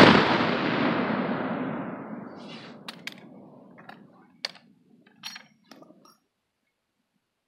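The report of a black-powder 12-gauge shotgun, fired a moment before, rolling away and dying out over about four seconds. After that come several sharp metallic clicks and clacks as the gun is handled.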